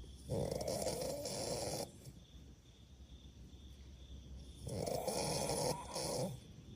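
A person snoring: two long snores, each about a second and a half, starting about four seconds apart, the second briefly broken near its end.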